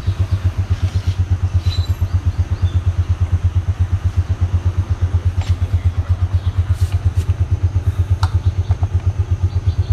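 A small engine idling steadily, with an even low throb about eight to nine times a second. Over it come a few light clicks and taps from a wrench being worked on the wheel axle.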